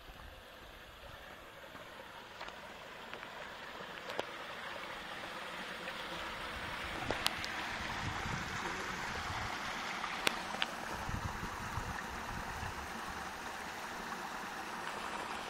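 Small stream of water rushing and splashing over rocks, growing steadily louder, with a few sharp clicks near the middle.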